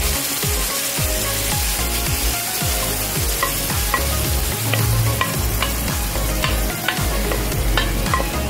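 Sizzling and bubbling as sauce with sautéed garlic and onions is poured over browned chicken pieces in a hot pan, with small crackling pops throughout.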